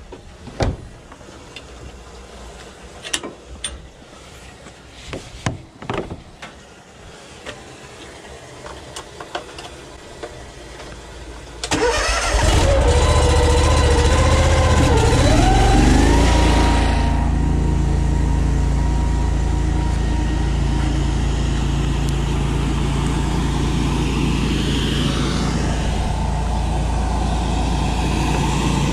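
A few scattered clanks and knocks, then about twelve seconds in the drain jetter's Honda petrol engine starts. Its pitch wavers for a few seconds before it settles into steady running that drives the high-pressure jetting pump.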